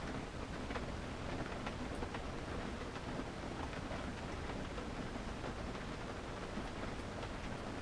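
Rain falling on a car, heard from inside the cabin: a steady hiss of rain with many small ticks of individual drops striking the body and windshield.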